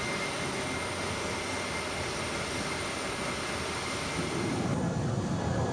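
Steady rushing noise of jet aircraft engines, with a heavier low rumble coming in about four seconds in.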